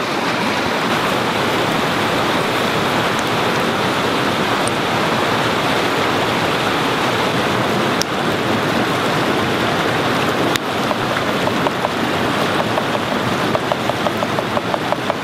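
A fast-running forest creek rushing steadily, an even wash of water noise, with a quick run of faint ticks near the end.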